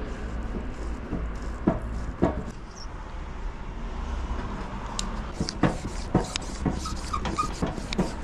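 Parts of a RockShox Monarch XX rear bicycle shock being handled and fitted back together by hand: scattered light clicks and knocks, coming more often in the second half.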